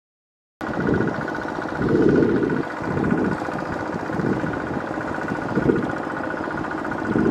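Kubota ZT155 single-cylinder diesel engine on a two-wheel walking tractor running under load as its cage wheels churn through a flooded paddy, starting suddenly about half a second in. The engine note is steady with a faint high whine above it and uneven heavier pulses underneath.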